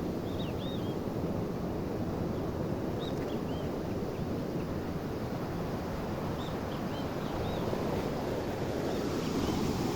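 Steady rumbling wind and road noise buffeting the microphone. A few short, high bird chirps come through near the start, about three seconds in, and again around seven seconds in.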